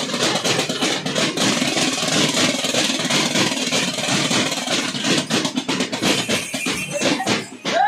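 Thappetagullu troupe beating small hand-held frame drums (thappeta) in a fast, dense rhythm, with the large brass bells on their waists and ankles jingling as they stamp.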